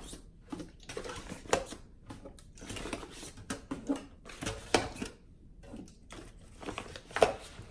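Aluminium drink cans knocking and clinking as they are picked up off a wooden table and set one by one into a soft-sided insulated lunch bag, with irregular knocks, the loudest near the end.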